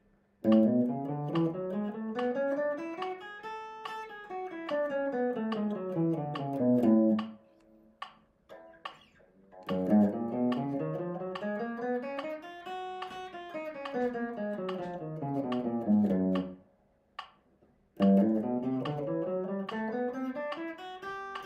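Electric guitar playing major scales one picked note at a time. Each run climbs step by step and then comes back down. There are three runs with short pauses between them.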